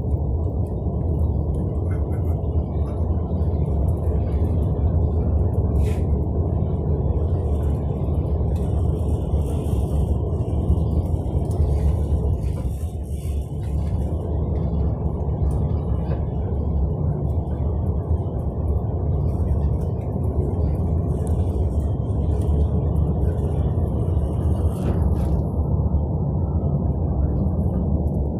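Steady low engine and road rumble of a bus or coach, heard from inside its cabin while it drives along, easing slightly about halfway through.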